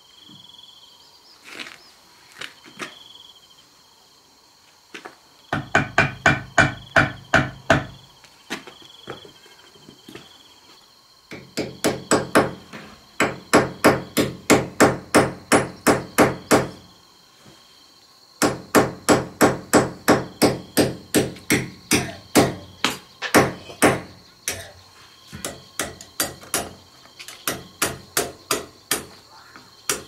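Hammer striking wood in runs of quick, even blows, about four a second, with short pauses between the runs, as wooden battens are nailed along the top of a brick wall. A few single knocks come before the first run.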